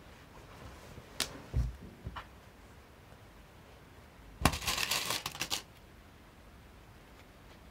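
Shiny lining fabric rustling and crinkling as it is folded and pinned into a hem, with a few soft clicks and a low thump in the first two seconds and a louder crackly burst of rustling about four and a half seconds in, lasting about a second.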